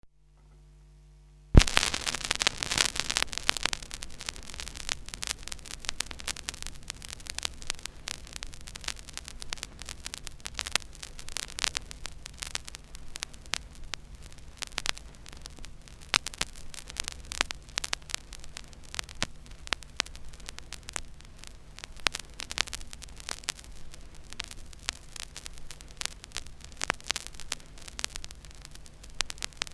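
Silent groove of a 12-inch vinyl record playing: steady surface crackle and hiss with scattered clicks and pops over a low mains hum. About a second and a half in, a single loud click starts the crackle; before it only the hum is heard.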